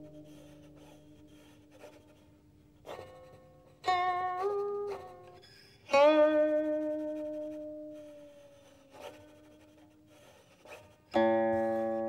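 Guqin (Chinese seven-string zither) solo: a few plucked notes, each ringing and fading slowly, with faint string noises between them. A note about four seconds in slides upward in pitch. A strong pluck comes about six seconds in, and a louder, fuller one near the end.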